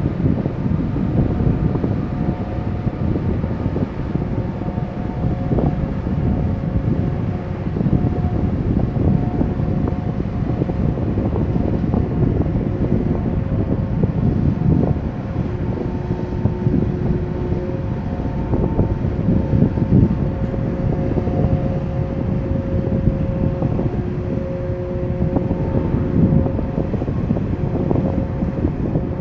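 Wind buffeting the microphone over the steady hum of the container ship NYK Fuji's machinery as it passes, with a few held tones that fade in and out.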